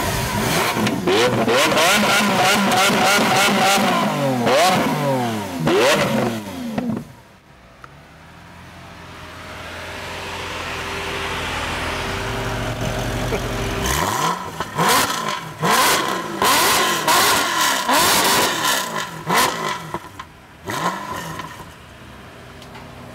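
Lamborghini Aventador's V12 on its stock exhaust revved in a run of quick throttle blips, the pitch sweeping up and down. It drops off suddenly about seven seconds in to a steady idle. About halfway through, a Mercedes SLS AMG's V8, fitted with Supersprint race headers and X-pipe, is revved in a second run of sharp blips.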